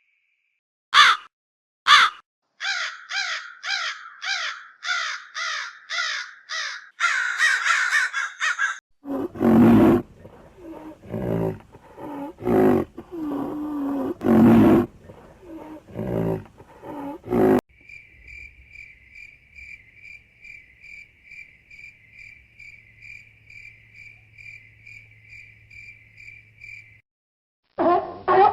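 A run of different animal calls. About nine evenly spaced harsh high calls come first, then a stretch of loud, deep roaring calls lasting about eight seconds, then a steady high pulsing buzz of about four pulses a second.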